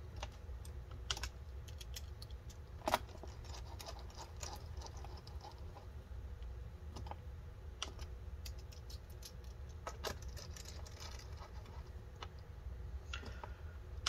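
Laptop bottom-cover screws being driven in with a small precision screwdriver: scattered light clicks and taps of the bit on the screw heads and the case, one sharper click about three seconds in.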